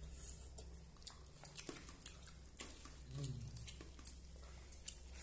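Quiet eating sounds close to the microphone: scattered small clicks and chewing over a steady low hum, with a short low murmur about three seconds in.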